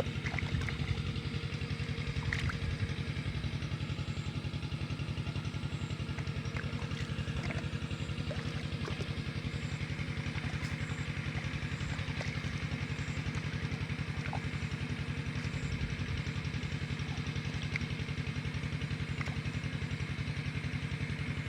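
A small engine running steadily at an even speed, with a few faint clicks and knocks over it.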